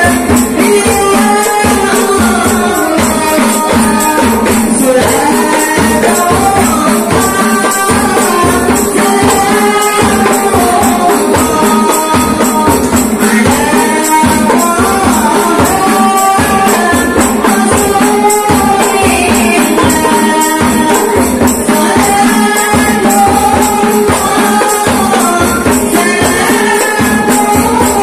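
Qasidah rebana music: a woman sings a devotional song into a microphone over rebana frame drums struck in a steady, quick rhythm.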